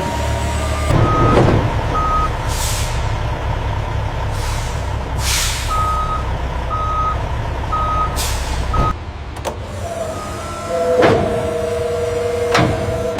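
Truck engine running with a backup alarm beeping at a steady pitch, roughly once a second with gaps, and several short hisses of air brakes. The engine rumble cuts off about nine seconds in, followed by a two-note tone and a few knocks.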